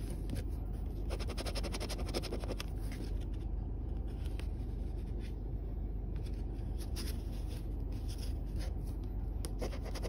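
A copper penny scratching the coating off a scratch-off lottery ticket, in bursts of quick back-and-forth strokes with short pauses between, over a steady low hum.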